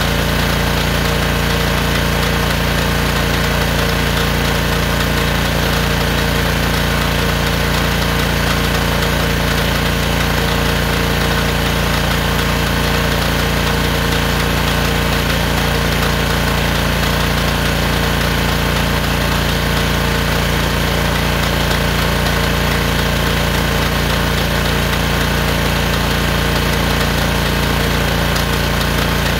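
Honda engine of a gas pressure washer running steadily at constant speed, driving the pump of a drain jetter.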